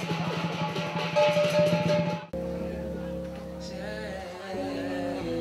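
Fast drumming with cymbals for a dragon dance, cut off abruptly about two seconds in. Then a slow guitar intro to a pop song begins, with held chords.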